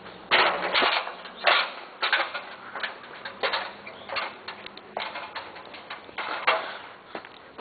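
Irregular knocks and scraping clatter, a few short hits a second at uneven spacing, loudest about half a second in and again near the end.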